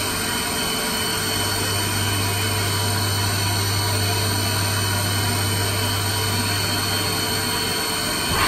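Haas VF-2 CNC vertical machining centre running: a steady low hum with several constant high whining tones over it.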